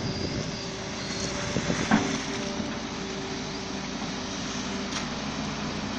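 Hitachi Zaxis excavator's diesel engine running steadily under load with a held hydraulic whine, as the machine strains on both travel pedals to drive out of deep mud; a sharp knock about two seconds in.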